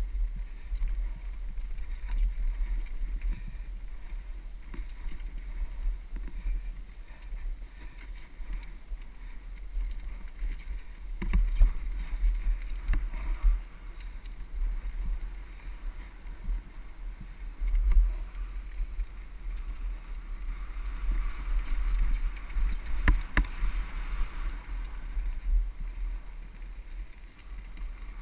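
Wind rumbling on a helmet-mounted camera's microphone as a mountain bike rolls down dirt singletrack, with the bike rattling and clicking over rocks and roots. A few sharper knocks stand out, about eleven, eighteen and twenty-three seconds in.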